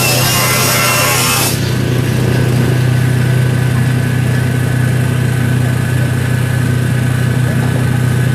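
Steady low engine drone, holding one even pitch without revving. A brighter hiss over it cuts off about a second and a half in.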